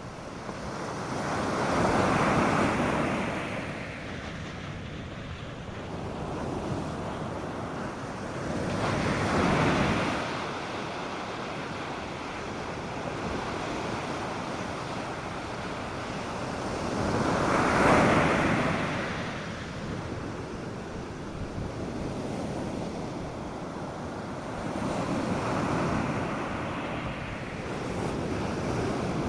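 North Sea surf breaking on a beach: four waves swell and wash in, about every eight seconds, over a steady hiss of sea and light wind.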